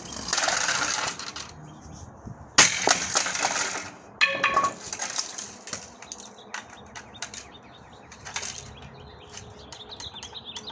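Plastic cordless phone base being smashed with a bat. There is crunching at the start, a hard strike about two and a half seconds in, and another strike with a short ringing ping about four seconds in, followed by scattered small clicks and rattles of broken pieces.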